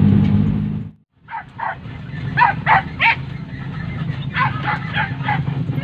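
Hunting dogs barking in a string of short, sharp barks, about nine in four seconds, over the low steady hum of an idling car engine. The sound of the car driving cuts off abruptly about a second in.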